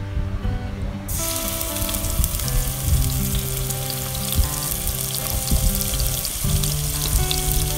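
Ginger-garlic paste frying in hot cooking oil in a pan: a sharp sizzle starts suddenly about a second in and carries on steadily as the paste begins to sauté.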